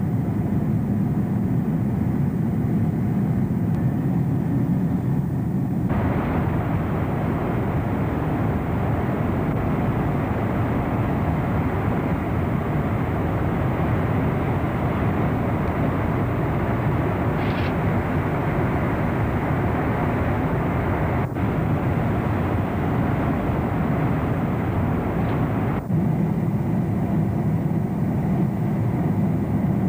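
Steady cabin noise of a jet airliner in flight: a deep rumble with a rush of air over it. About six seconds in, the rush turns brighter and hissier.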